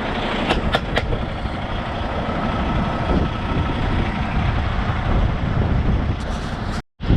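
Strong wind buffeting the microphone with a steady low rumble, and two sharp clicks about half a second and a second in. The sound drops out for a moment near the end.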